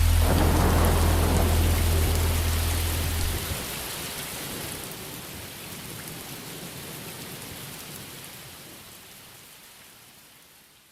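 Steady rain, fading slowly away. A held low musical note sounds underneath and cuts off about three seconds in.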